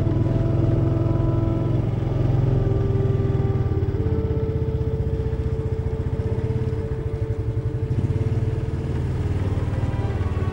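Small single-cylinder four-stroke engine of an Italika XT110RT motorcycle running at low speed under way, a steady low pulsing drone whose pitch steps up a little about four seconds in.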